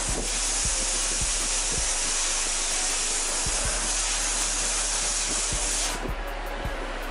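Blast cabinet nozzle hissing as compressed air drives fine glass bead media onto an engine valve to clean it. The hiss cuts off sharply about six seconds in.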